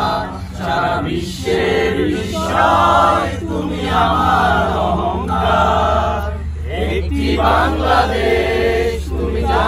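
Background music: a song's chorus of chanted, choir-like vocals in short repeated phrases over a steady deep bass note.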